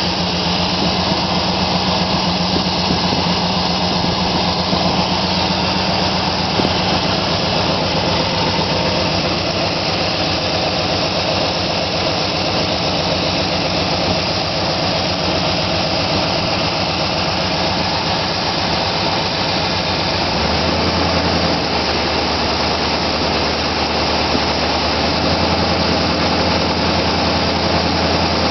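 Chevrolet 350 small-block V8 running steadily on its first start after being installed, its low note shifting to a slightly different steady speed about twenty seconds in.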